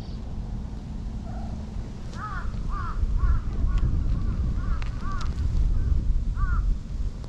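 A series of about eight short, arched animal calls, roughly one every half second, starting about two seconds in, over a low wind rumble on the microphone.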